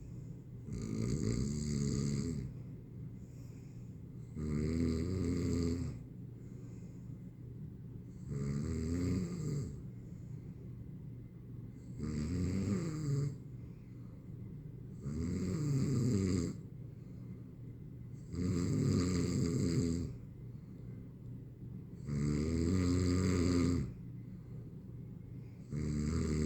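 A person snoring in a steady rhythm, a rasping snore of a second and a half to two seconds about every four seconds, seven times.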